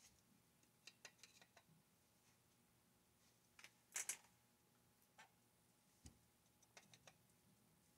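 Faint, scattered clicks and taps of small metal parts and a hand tool being handled while parts are fitted to a chainsaw engine. There is a sharper double click about four seconds in.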